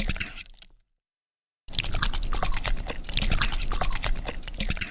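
Eating sound effect from a mukbang ASMR game: many rapid crisp crunching clicks. It cuts to dead silence briefly about a second in, then runs again until near the end.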